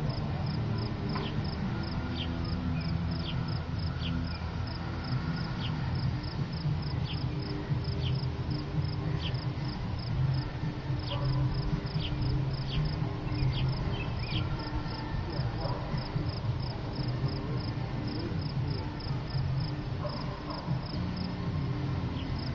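Crickets chirping in a steady, fast, high-pitched pulse, with short falling chirps about once a second over most of it and a low rumble underneath.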